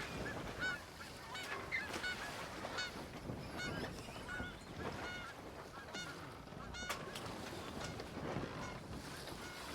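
Geese honking: many short calls in an irregular run, over a faint steady background.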